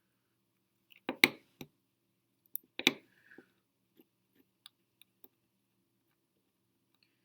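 Small hard clicks and taps of fingerboard parts being handled during setup: a quick cluster of clicks about a second in, a louder click near three seconds, then a few faint ticks.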